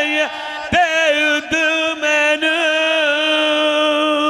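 A man's voice chanting devotional verse in a bending melody, then holding one long, slightly wavering note from about a second and a half in.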